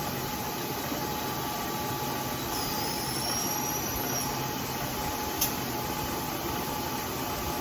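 Bridgeport milling machine running steadily, with a faint high whistle from about three to four seconds in and a single light tick after about five seconds.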